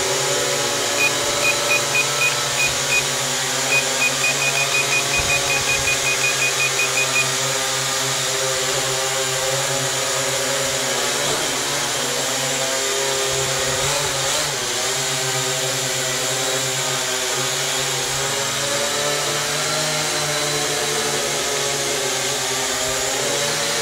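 Small ProMark VR quadcopter hovering, its electric motors and propellers giving a steady, even buzz. Short high electronic beeps sound over it: a handful in the first few seconds, then a quicker run of about four a second that stops about seven seconds in.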